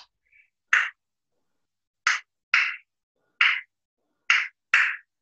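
A person breathing hard through the mouth while exercising: about six short, sharp breaths, irregularly spaced about half a second to a second apart.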